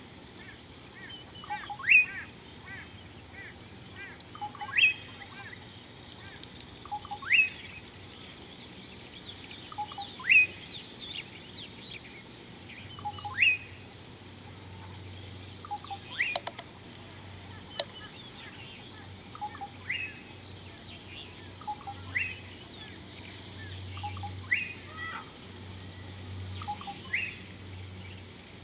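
Bird calls: one bird repeats a short call that sweeps sharply upward, about every two to three seconds, each with a lower note just before it. Softer chirps from other birds run in between.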